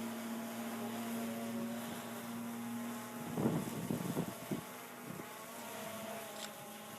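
DJI Phantom Vision+ quadcopter's motors and propellers humming steadily in flight, the pitch fading after about three seconds. Wind gusts buffet the microphone about three and a half to four and a half seconds in.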